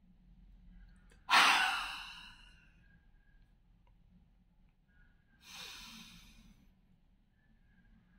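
A man forcefully blowing breath out through his mouth, twice: a sharp, loud huff about a second in that trails off over about a second, and a weaker one about five seconds in. Each is the sudden push-out stage of a breathing exercise (full inhale through the nose, two-second hold, then a jerked exhale) meant to loosen phlegm and relieve a cough.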